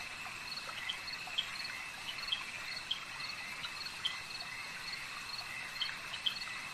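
Insects chirping: a steady high trill with short chirps repeating about twice a second.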